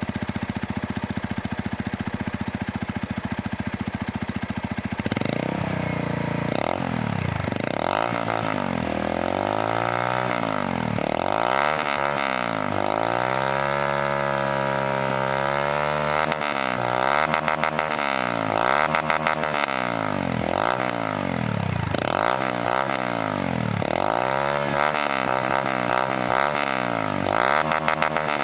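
Motorcycle engine through a Pro Tork V3 sport exhaust, idling steadily, then revved up and down again and again from about five seconds in, with one longer high rev held near the middle.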